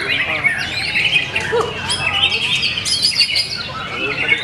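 Several songbirds singing at once in dense, overlapping chirps, trills and whistled phrases, the kind of birdsong played as a lure to set a murai batu (white-rumped shama) singing.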